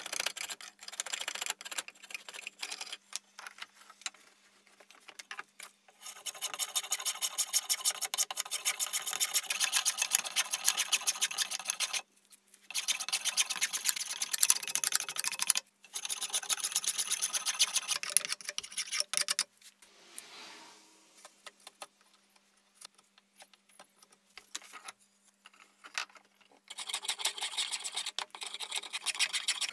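A hand blade shaving a wooden strip in rapid back-and-forth strokes, coming in several runs with short pauses between them.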